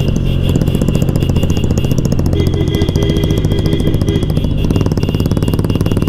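Motorcycle engine running steadily while riding, a fast, even pulse from the exhaust with no big change in revs.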